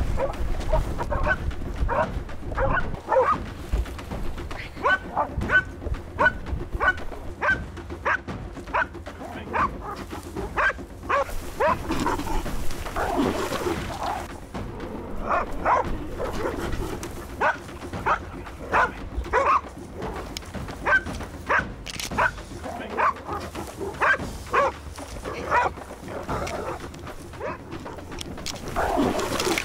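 Pig-hunting dog barking over and over, a bark about every half second to second: the bay of a dog bailing a wild boar, holding it at bay.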